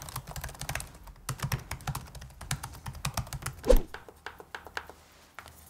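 Fast typing on the Samsung Galaxy Book4 Pro 14 laptop keyboard, a quick run of soft key clicks. A single thud a little before four seconds in, then a few sparser clicks of the mechanical (non-haptic) touchpad being pressed.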